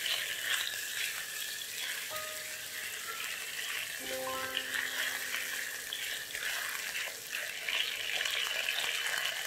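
Turmeric-coated chicken pieces frying in shallow hot oil in a wok, a steady sizzle, with a few soft background music notes.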